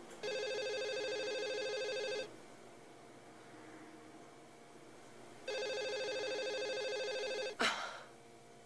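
A telephone ringing twice, each ring a steady two-second tone with about three seconds between rings. A short sharp sound follows right after the second ring.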